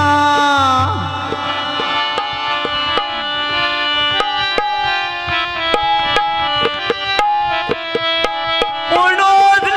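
Instrumental interlude of Punjabi folk music: a tabla-style hand drum plays a brisk pattern of strokes under a sustained melodic instrument moving in stepped notes. A male singer's held note ends about a second in, and singing starts again near the end.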